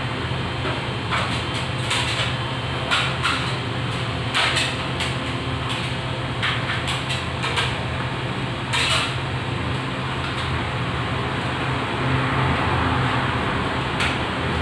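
Scattered light clicks and knocks of tools and metal fixture parts being handled, thickest in the first nine seconds, with one sharper click near the end, over a steady low hum.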